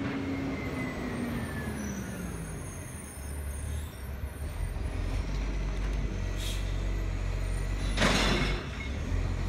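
Garbage truck's engine slowing with a falling pitch as it pulls up, then running steadily while it works the bins. A short hiss about six and a half seconds in and a louder burst of hiss about eight seconds in.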